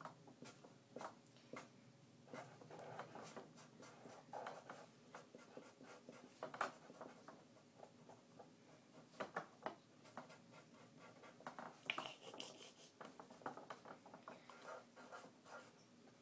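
Faint, irregular scratching strokes of a drawing tool on paper as a picture is drawn.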